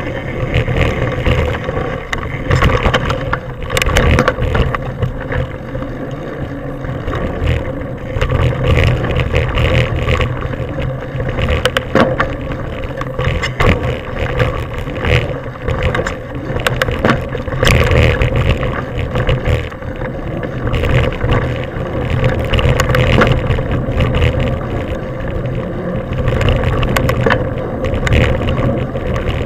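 Wind buffeting the camera microphone and tyres rolling over dirt as a mountain bike rides fast along forest singletrack, with a steady hum under it. Scattered knocks and rattles from the bike come over bumps in the trail.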